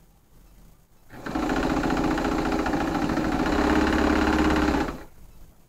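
Electric domestic sewing machine running at a steady speed, stitching along a seam through quilted fabric. It starts about a second in, runs for nearly four seconds and stops abruptly.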